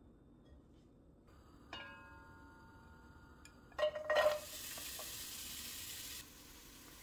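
Diced carrots and chopped onion tipped from a plate into hot olive oil in a pot. First a clink that rings for about two seconds, then a clatter as the vegetables land, then sizzling in the oil that drops suddenly to a quieter hiss about a second before the end.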